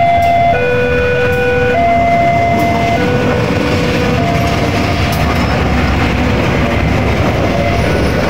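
GE-built CC 203 diesel-electric locomotive passing close by with a train of passenger coaches: steady engine rumble and wheels clattering over the rails. Over the first half, a level-crossing warning alarm alternates between two tones about every second.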